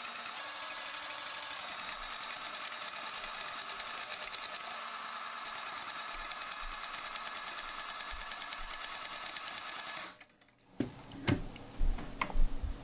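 Electric drill running steadily, spinning a Mix-Stir wand in a glass carboy of wine to stir in sulfite and drive out dissolved carbon dioxide (degassing). It stops abruptly about ten seconds in, followed by a few light knocks.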